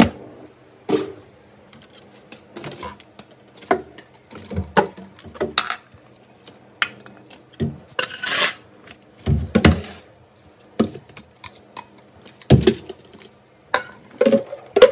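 Plastic bottles, tubs and jugs knocking and clattering as they are pulled out of an under-sink cabinet and set down on a tile floor, a string of irregular clunks with a brief rustle of plastic about eight seconds in.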